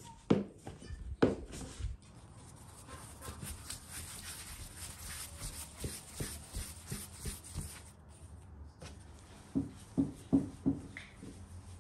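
A metal blade knocks twice on a wooden board as it cuts dough, then hands rub and round dough balls on the floured board with a soft steady scuffing, followed by a few more knocks on the board near the end.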